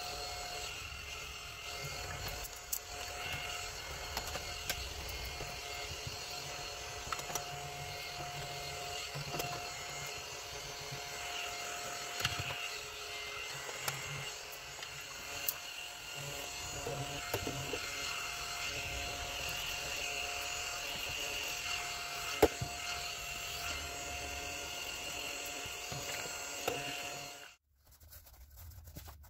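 A small electric motor whirring steadily, with occasional light clicks and knocks of small objects being handled on a desk; the whirring cuts off abruptly near the end.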